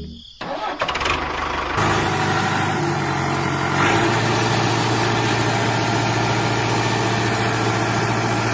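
Heavy-vehicle engine idling: a steady, noisy rumble that settles into a low, even hum about four seconds in.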